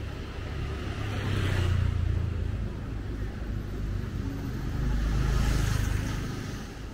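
Street traffic: two motor vehicles pass close by one after the other, each swelling and fading, about two seconds in and again about five and a half seconds in, over a steady traffic rumble.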